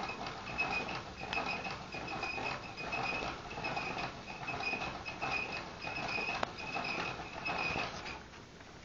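Russian dwarf hamster scratching and rustling in wood-shaving bedding, a rhythmic scratch about twice a second that stops shortly before the end.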